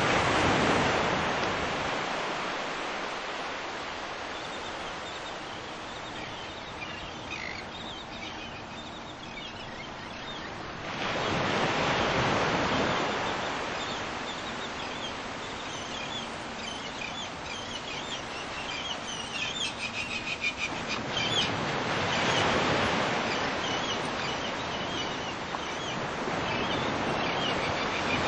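Waves washing in slow swells about every eleven seconds, with small birds chirping in between.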